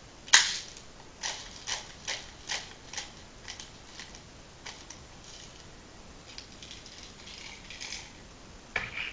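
Clicks of a BB speed loader pushing plastic airsoft BBs into a pistol magazine: one sharp click, then a run of clicks about two or three a second that thins out, with faint handling rustle later on.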